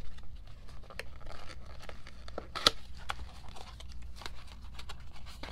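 Album packaging being handled: paper rustling and crinkling with scattered light taps and one sharp click about two and a half seconds in.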